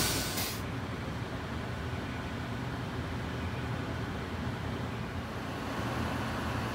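Steady low hum of urban background noise at a bus terminal at night, with a louder hiss that cuts off about half a second in.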